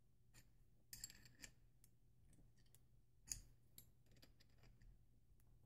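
Faint metallic clicks and scrapes of a threaded pipe fitting being tightened on an air compressor drain line, quiet overall with a low steady hum underneath.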